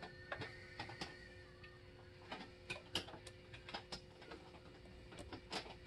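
Faint, irregular clicks and ticks as the transmission's throttle valve (TV) cable adjuster is released at its detent and worked along at the throttle body linkage.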